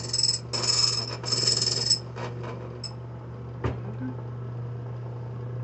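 Foley Belsaw Model 200 key machine's cutter plunging into a flat steel safe deposit box key: about three short, high-pitched rasping cuts in the first two seconds over the motor's steady hum. After that the motor hums on alone, with one sharp click in the middle.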